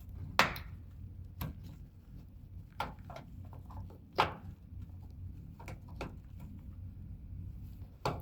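Scattered short clicks and taps, about seven at irregular intervals, from a hand tool unscrewing a bolt inside a car's rear door, over a faint steady low hum.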